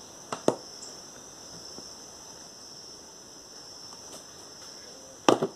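Steady high-pitched insect chirring, with a few sharp clicks of pliers on the spin dryer's metal motor base: two about half a second in and a couple more near the end.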